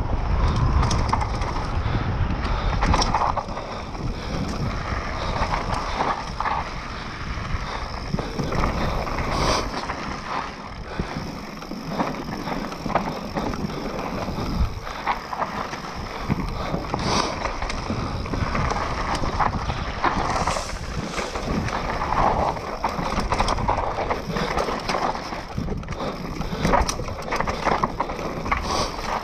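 Mountain bike descending a dry dirt forest trail at speed: knobby tyres rolling and skidding over dirt, roots and leaves, with the bike rattling and knocking irregularly over the bumps.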